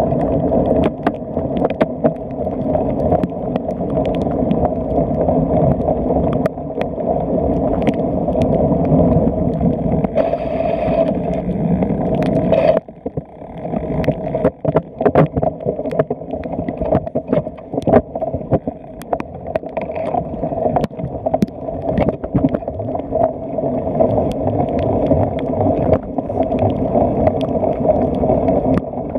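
Cyclocross bike ridden hard over rough grass: a steady rumble of wind buffeting the camera microphone, with frequent knocks and rattles from the bumpy ground. The noise drops off suddenly about halfway through, then builds again.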